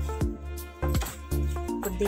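Background music with a bass line and a regular light beat.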